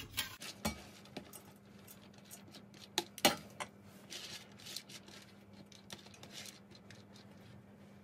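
Kitchen clatter of cookware and utensils: scattered knocks and clinks, the loudest about three seconds in, over a low steady hum.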